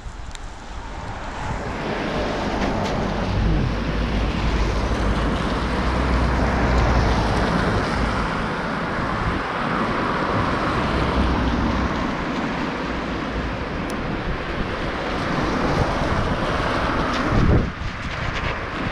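Wind rushing over the microphone and bicycle tyres hissing on a wet road while riding, building over the first two seconds and then steady, with a low rumble. A short thump near the end.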